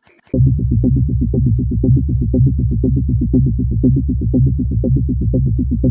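Electronic background music, starting suddenly just after the start: a heavy synthesizer bass line with rapid, evenly repeated notes.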